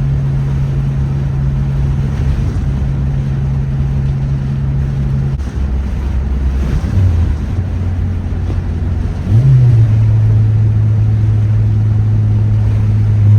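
2006 Honda Civic Si's 2.0-litre four-cylinder engine heard from inside the car while driving, with road and wind noise. The steady drone drops off about five seconds in during a gear change, then picks up again at a lower pitch, rising briefly and getting louder about nine seconds in before settling into a steady hum.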